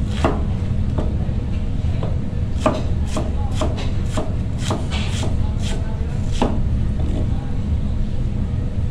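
A large kitchen knife slicing a head of cabbage against a cutting surface: a run of uneven chopping strokes, coming quicker in the middle, over a steady low hum.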